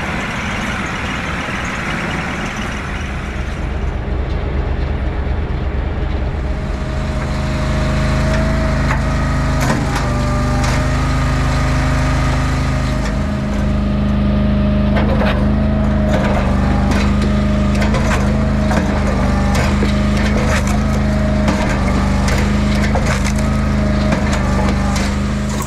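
Engine-driven hydraulic log splitter running steadily while red oak rounds crack and split apart on its wedge, with many sharp cracks from about a third of the way in. The engine note steps up slightly about halfway through.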